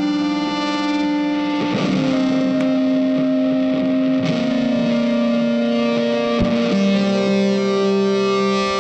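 Background music: a guitar played through effects, holding long, slow notes that change pitch every second or two.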